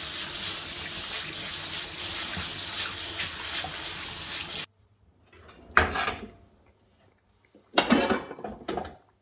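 Kitchen tap running steadily into a sink, cutting off suddenly about four and a half seconds in, followed by two short clattering handling sounds about a second and three seconds later.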